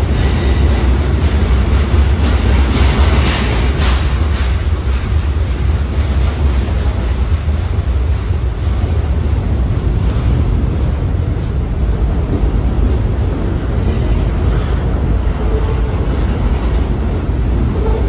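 Freight train's cars rolling past close by: a steady low rumble of steel wheels on the rails, with a stretch of louder clacking and rattling about three seconds in.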